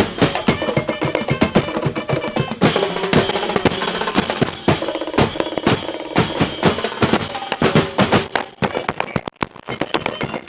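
Festival drum ensemble playing a fast, driving beat for a street-dance routine. The drumming thins out briefly near the end, then picks up again.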